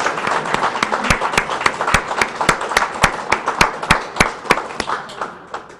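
Audience applauding, with one person clapping close to the microphone in a steady beat of about three claps a second. The applause dies away near the end.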